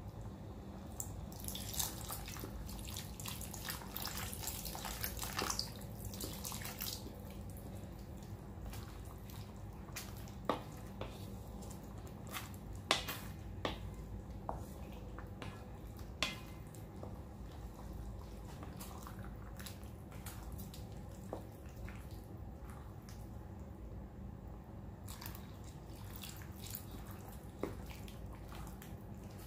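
Pork dinuguan bubbling in a metal wok while a wooden spoon stirs it: scraping strokes across the pan for the first several seconds and again near the end, and a few sharp knocks of the spoon against the wok in the middle.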